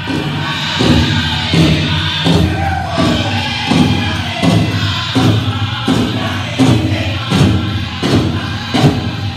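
Powwow drum group singing a chicken dance song in high voices over a big drum struck in a steady beat, about one and a half beats a second.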